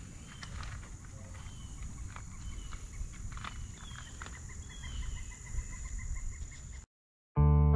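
Riverbank ambience: a low rumble of wind on the microphone, scattered clicks and taps, and a run of faint short chirps from a small bird. Near the end it cuts to silence, then a guitar music track starts.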